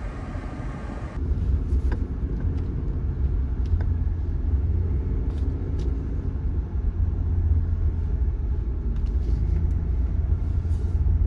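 A Jeep driving, with a steady low rumble of engine and road noise. About a second in, the higher hiss drops away and only the low rumble is left.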